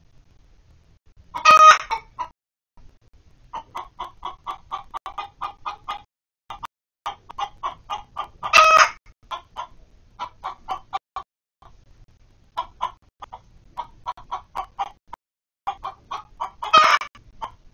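Hens clucking in quick runs of short clucks, three times rising into a loud, drawn-out squawk, about seven seconds apart.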